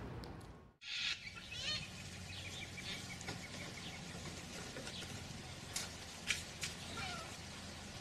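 Sulphur-crested cockatoos calling: a string of short squawks and chattering calls, with a few sharp, louder screeches near the middle. The sound cuts out briefly just under a second in.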